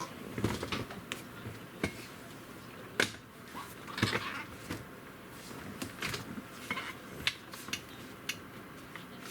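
Scattered light clicks and clinks of small hard objects being handled, irregular and a few a second at most, with brief scraping rustles about three and four seconds in.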